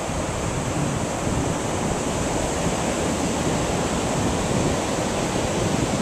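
Steady wash of small surf breaking and running up a sandy beach, with wind rumbling on the microphone.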